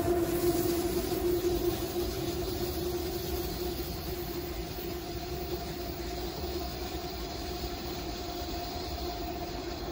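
Freight train passing on the rails, a steady rumble with a humming tone that fades over the first few seconds as the train moves away, then holds at a lower level.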